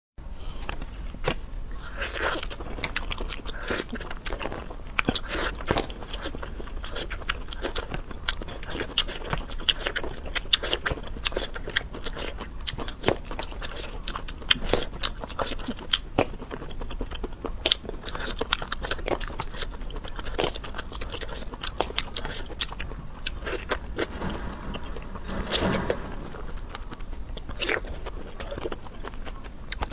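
Close-miked eating sounds: biting, crunching and chewing food, with many short, irregular clicks and wet mouth noises.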